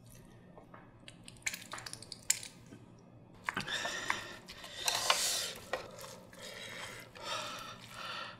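A spoon stirring and scraping egg custard, rice and ketchup in an earthenware ttukbaegi pot. A few light clicks and taps come first, and steady scraping and mixing starts about three and a half seconds in.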